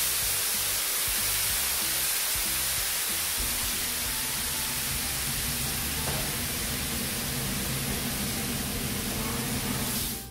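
Water sizzling and hissing steadily as it flashes to steam on a hot steel flat-top griddle, deglazing the cooking surface.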